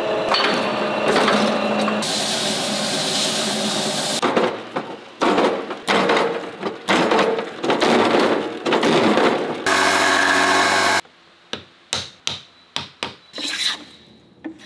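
Woodworking sounds in quick succession: machines running steadily at first, then a run of about seven strong strokes on wood, a short steady machine burst, and then a string of short, sharp strokes on wood near the end.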